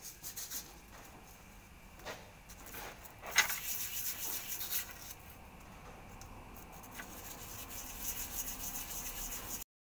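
Copper sealing washers being rubbed clean on fine sandpaper: a scratchy rubbing in irregular strokes that cuts off abruptly near the end.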